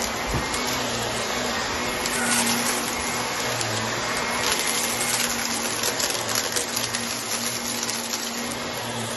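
Vacuum cleaner running steadily on a rug while it sucks up crumbs and grit, which make a dense crackle of small clicks and crunches over the motor's even whine and hum.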